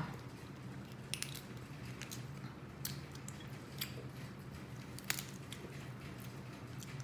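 A person eating crab legs close to the microphone: chewing and wet mouth smacking with a few sharp clicks, over a low steady hum.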